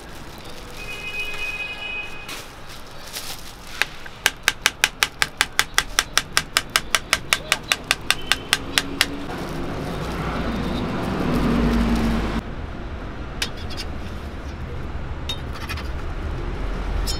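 Kitchen knife chopping a banana into slices on a plastic cutting board: a fast, even run of sharp taps, about five a second, lasting around five seconds.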